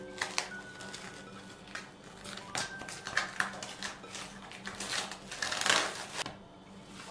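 Plastic cling film crinkling and crackling as it is stretched and pressed over a glass bowl, with a louder rustling burst about five and a half seconds in as the film is peeled back off.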